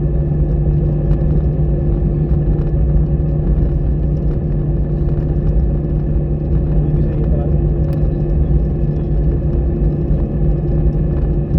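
Steady drone of an Airbus airliner's jet engines heard inside the passenger cabin, with a deep rumble and a constant low hum.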